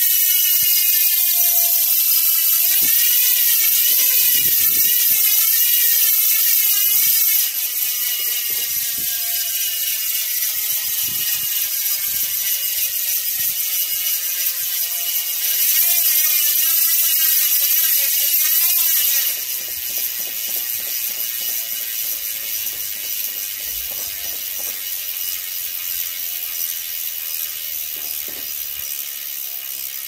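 DT Swiss 350 rear hub's star-ratchet freehub buzzing as the wheel spins freely, its pitch slowly falling as the wheel slows. The tone wavers twice, near the start and again past the middle, and fades somewhat toward the end.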